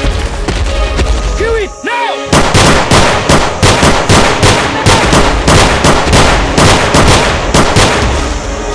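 Rapid handgun fire, about four shots a second, starting a couple of seconds in and running almost to the end. Before it, a low rumble with a short wavering cry.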